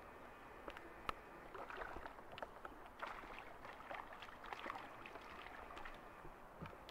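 A small hooked fish thrashing and splashing at the water's surface as it is reeled in beside the boat, with scattered small clicks and splashes. A single sharp click about a second in is the loudest sound.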